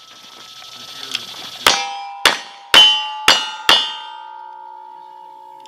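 Five single-action revolver shots about half a second apart, each with the ring of a steel target being hit, a cowboy action shooting string. The metallic ringing hangs on and fades after the last shot.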